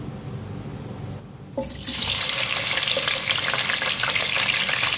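Raw mutton pieces going into hot cooking oil in a pot: a loud sizzle starts suddenly about a second and a half in and keeps going as the meat begins to fry.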